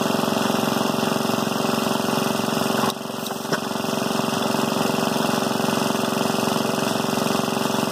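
Restored antique vertical stationary engine with twin flywheels, running steadily with an even, rapid beat. Its loudness dips briefly about three seconds in.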